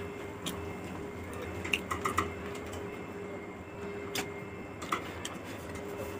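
Close-up eating sounds: fingers mixing rice and curry on a plate, and chewing, heard as scattered short wet clicks and smacks, a small cluster about two seconds in, over a steady faint hum.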